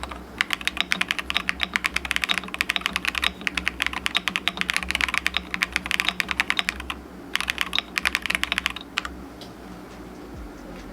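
Fast typing on a Monsgeek M3W aluminium TKL mechanical keyboard with Akko V3 Cream Yellow Pro linear switches, a polycarbonate plate and heavy internal foam: a dense run of key presses that pauses briefly about seven seconds in, resumes, and stops about nine seconds in.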